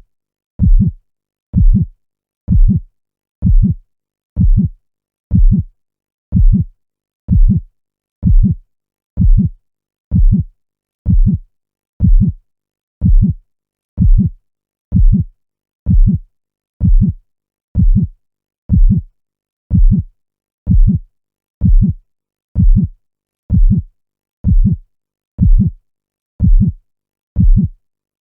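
Heartbeat sound: a steady run of deep, evenly spaced thumps at about one beat a second, with silence between the beats.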